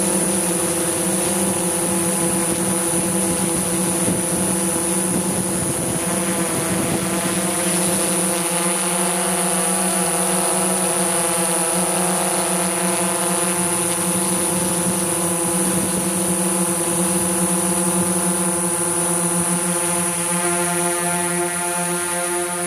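Steady hum of a DJI S900 hexacopter's six rotors in flight, a stack of level tones with a thin high whine above. The pitch shifts slightly near the end.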